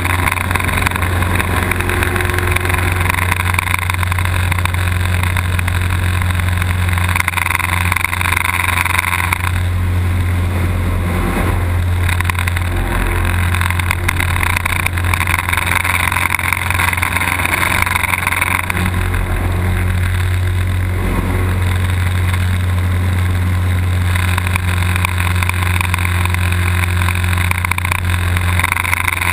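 Small aerobatic plane's propeller engine droning steadily, heard from inside the cockpit, with a higher rushing sound that swells and fades about four times as the plane manoeuvres.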